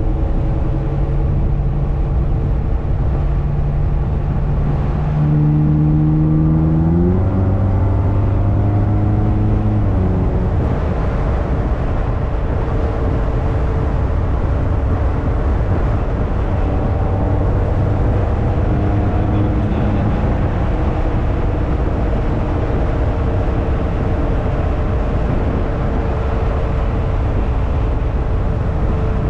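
Ferrari California's 4.3-litre V8 accelerating: the engine note climbs for about two seconds, drops with a gear change about seven seconds in, climbs briefly again and drops about ten seconds in, then settles into a steady cruise with road and tyre noise.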